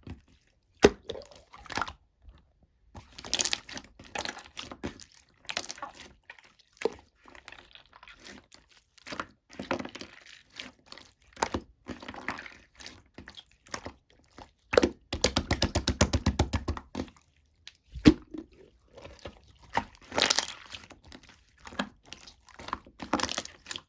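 Slime being squished and poked by hand, giving irregular crackling pops and squelches from trapped air, in bursts with short pauses. About 15 seconds in comes a run of fast, closely spaced clicking.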